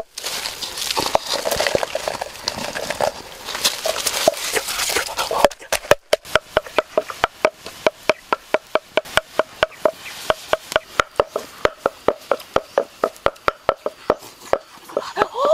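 Wooden pestle pounding in a wooden mortar: irregular knocking for about the first five seconds, then steady, even strikes about four a second, each a short ringing knock. A brief rising-and-falling cry comes right at the end.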